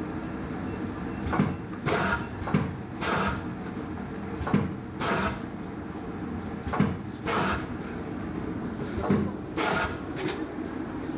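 Factory production-line machinery running with a steady low hum and short hissing bursts, mostly in pairs about half a second apart, repeating every two to three seconds.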